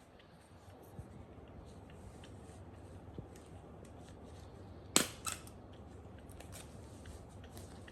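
A sharp click about five seconds in, followed by a smaller click a moment later, over a faint room background with a few light ticks.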